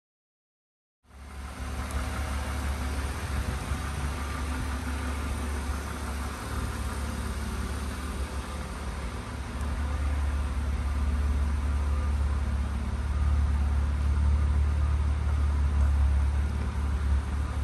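BMW Z3 2.8i's straight-six engine idling steadily, starting about a second in and growing somewhat louder in the second half.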